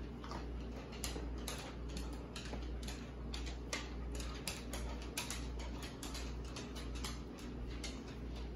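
Cats crunching dry treats: a quick, irregular run of short, crisp crunches, several a second, over a steady low hum.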